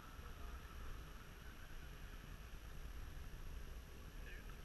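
Faint open-air background: a low, uneven rumble with a steady hiss and no distinct event.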